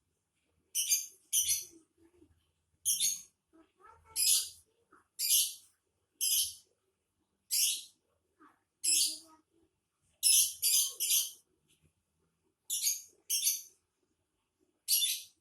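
Lovebird giving short, shrill screeching calls, about fourteen, singly and in quick pairs or threes with brief gaps between.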